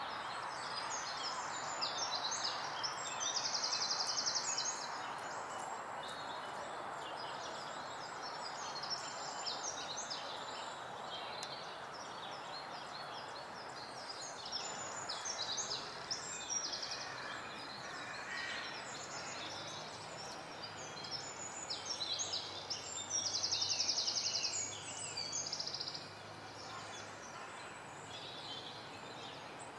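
Several woodland songbirds singing and calling over a steady background hiss, with a loud rapid trill twice, about four seconds in and again near the end.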